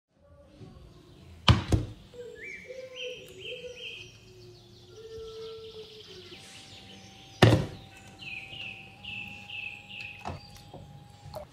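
Two loud knocks about six seconds apart, the loudest sounds, over small birds chirping in short repeated phrases.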